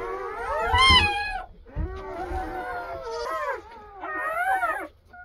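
Newborn German Shepherd–Great Pyrenees mix puppies crying and squealing: several high, wavering cries overlap in a few bouts, with short breaks between them.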